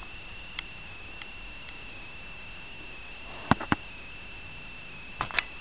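Small hard objects being handled close to the microphone: a few sharp clicks and taps, two pairs of them about three and a half and five seconds in, over a steady high-pitched electronic whine.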